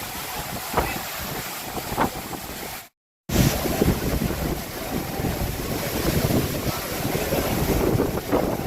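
Steady rush of a large waterfall, with wind buffeting the microphone. The sound drops out completely for a moment about three seconds in, then comes back louder.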